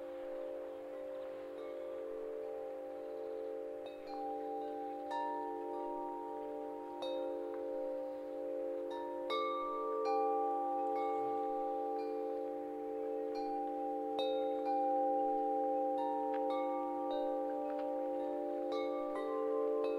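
Wind chimes ringing: notes struck at irregular moments, each tone ringing on and overlapping the others.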